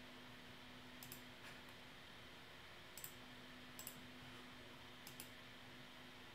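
Several faint computer mouse clicks, some in quick pairs, spread a second or so apart over a faint steady hum.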